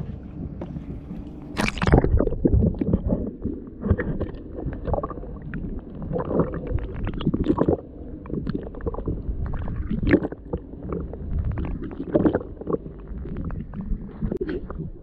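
Muffled underwater sound from a camera held below the sea surface: water sloshing and gurgling against the housing in uneven swells and knocks, with a sharp splash about two seconds in.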